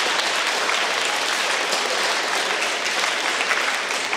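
Audience of schoolchildren and adults applauding, a steady, sustained round of clapping.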